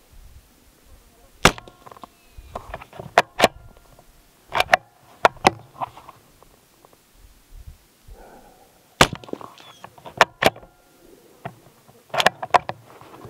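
Bolt-action CZ 455 Stainless .22 LR rifle firing a few sharp, short shots, with clicks of the bolt being worked between them.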